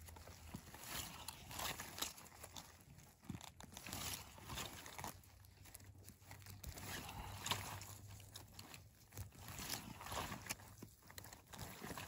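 Footsteps crunching and rustling through moss, dry twigs and undergrowth on a forest floor, in irregular steps with small snaps and crackles.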